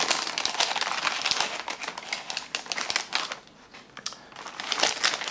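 Plastic pouches crinkling as an MRE hot beverage bag is worked into the flameless ration heater sleeve, with a short lull about three and a half seconds in.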